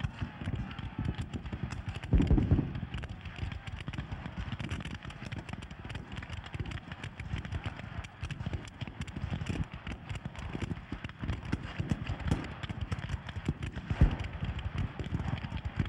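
Black-powder muskets firing in a continuous ragged crackle, with two louder booms, about two seconds in and near the end.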